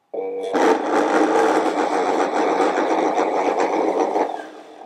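Blendtec Designer 650 blender running for about four seconds on a thin liquid mix of oat milk, melted coconut oil and fruit purée. It comes up to speed within half a second, holds steady, then spins down near the end.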